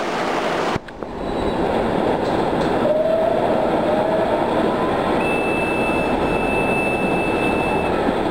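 Factory machinery running with a steady, dense noise. A faint rising whine comes in about three seconds in, and a thin high steady tone sounds from about five to eight seconds in.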